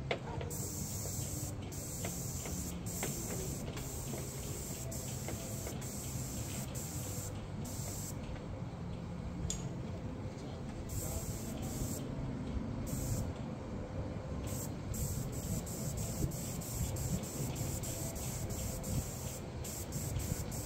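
Paint sprayer hissing in repeated on-off bursts as the trigger is pulled and released, some bursts a second or two long and others brief, over a steady low hum.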